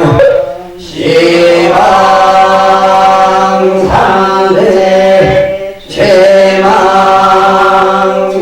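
Korean Buddhist liturgical chanting: long, drawn-out sung tones, broken by two short pauses for breath, one about half a second in and one near six seconds in.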